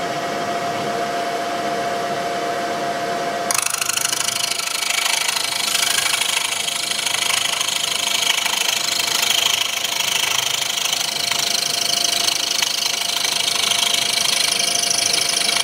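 A milling machine runs with a steady whine. About three and a half seconds in, the end mill starts cutting a helical flute in a clear plastic drill-bit blank, and a harsh, loud cutting noise joins the whine and continues.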